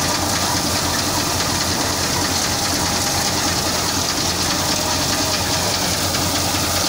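Tractor-powered threshing machine running steadily as crop sheaves are fed into it: a continuous, even rush of noise with a strong hiss, over a low steady drone.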